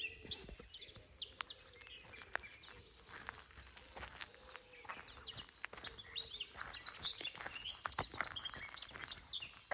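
Several birds chirping and singing at once in spring woodland, many short quick high calls and trills overlapping, with a few sharp clicks among them.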